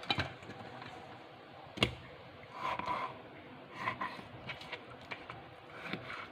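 Kitchen handling sounds: a few sharp knocks of utensils or dishes, spaced a second or two apart, with soft scraping between them.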